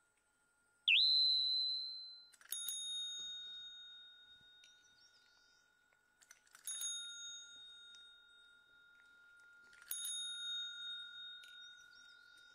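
Chrome desk call bell struck several times by a cat's paw, each strike a bright ding that rings on and fades away; the first, about a second in, is the loudest.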